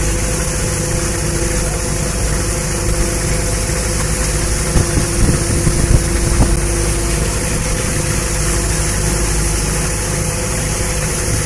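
Fishing boat's engine and deck machinery running, a steady drone with a constant hiss over it.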